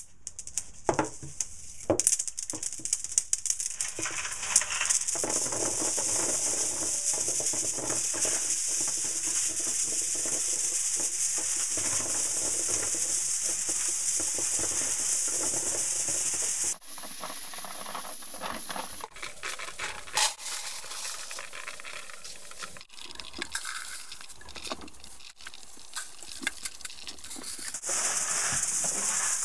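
A stream of pennies pouring onto a tile floor and then onto a growing heap of coins: a few separate clinks at first, then a dense, continuous clatter. The clatter thins and becomes patchier in the second half before turning full again near the end.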